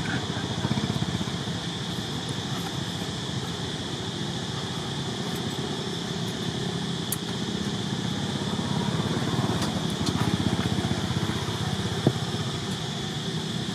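A steady motor drone, with a single sharp tap near the end.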